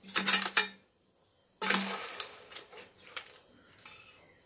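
A steel ladle scraping and knocking against a metal pot of thick crab gravy, in two short bursts about a second and a half apart, with lighter clinks after.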